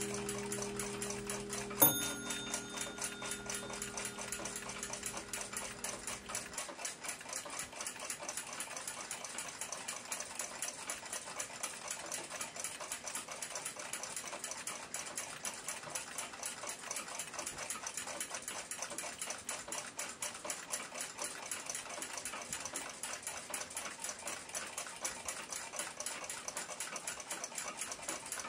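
Ansonia crystal regulator clock's open Brocot escapement ticking steadily and evenly: the clock running well after cleaning and oiling. About two seconds in there is a single sharp click with a brief ringing tone.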